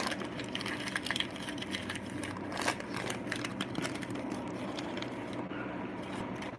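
Wrapping paper crinkling and rustling as hands rummage through a cardboard box, with many small irregular crackles.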